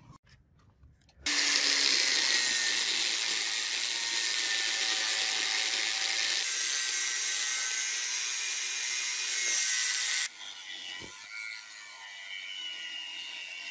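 Angle grinder with a thin cut-off disc cutting through a steel bar, starting about a second in with a loud, steady, high grinding hiss. About ten seconds in it drops abruptly to a quieter, grittier cutting sound.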